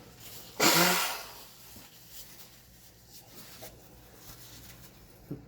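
A man blowing his nose into a napkin: one loud, breathy blast lasting about half a second, about a second in.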